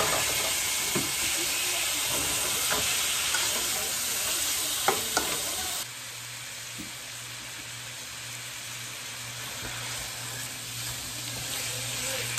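Diced raw chicken sizzling in olive oil in a hot stone-coated pan, stirred with a spatula that clicks against the pan a few times. About halfway through the sizzle drops to a quieter level, with a low steady hum beneath it.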